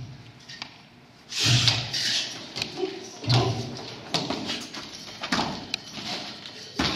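Thuds of feet landing and stamping on a padded mat, with swishes of a loose uniform, from a kung fu form with a cartwheel. They come as a string of sudden hits and whooshes about once a second after a quiet first second.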